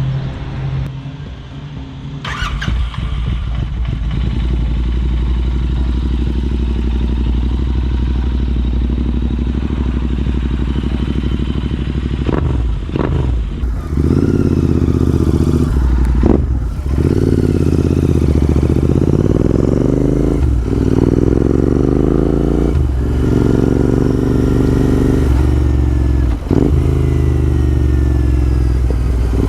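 Royal Enfield Interceptor 650's parallel-twin engine through a Red Rooster Performance Stellar exhaust with the baffles removed. It runs low and steady at first. About halfway through it accelerates through the gears, the note rising in each gear and dropping at each of about four shifts.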